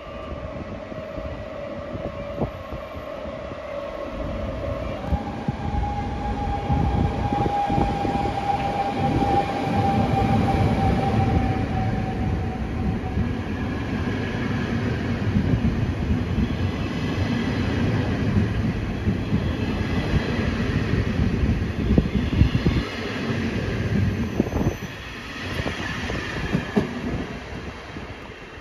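NS double-deck electric passenger train running in along the platform. A heavy rumble of wheels on the rails builds about five seconds in, with a high steady whine that sags slightly in pitch over several seconds as the train slows. The sound drops off abruptly near the end.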